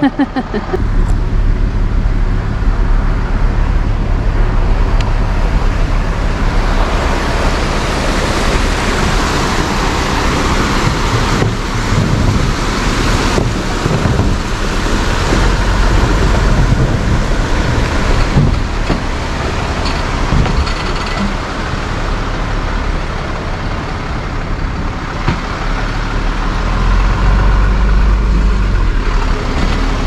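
Tow truck's engine running as the loaded truck moves slowly, a steady low drone with road and tyre noise.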